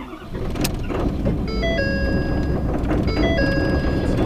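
Ford 6.7 L Power Stroke turbodiesel V8 of a 2012 F-550 starting cold at about −14 °C without the glow plugs being let warm, catching within the first second and settling into a steady idle. The truck's dashboard chime sounds twice over the engine, a short series of electronic tones about every second and a half.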